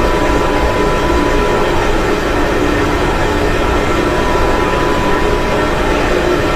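Steady rumbling background noise at an even level with a faint steady hum, no distinct breaths or snores.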